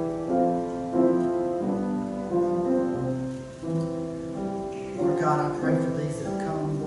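Slow keyboard music: held notes and chords changing about once a second.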